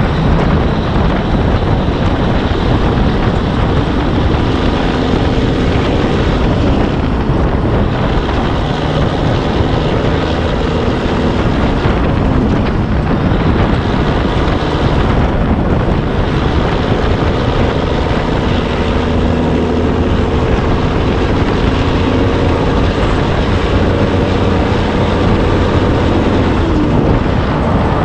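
Semi truck's diesel engine and road noise while driving, a loud steady drone.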